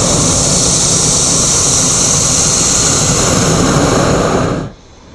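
Hot-air balloon's propane burner firing in one long, loud blast to heat the envelope, stopping about four and a half seconds in.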